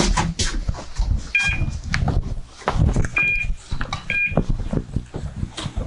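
Three short electronic beeps, the second and third about a second apart, amid irregular knocks and rustling of gear being handled.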